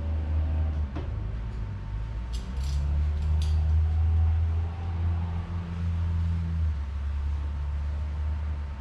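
A few small metal clinks about two to three and a half seconds in as screws and bracket parts are handled on the workbench, over a steady low hum.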